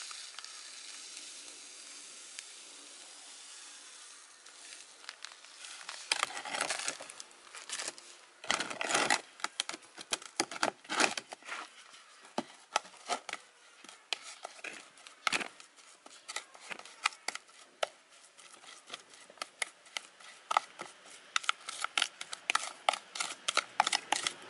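A metal spoon scraping and clicking against a plastic bowl as shrimp paste is mashed and mixed with MSG, in quick, uneven strokes from about six seconds in. Before that, a faint rustle of the plastic bag.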